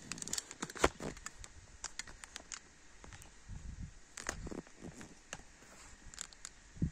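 Faint scattered clicks and scuffs, with one sharper click about a second in: handling noise and footsteps on a dirt floor.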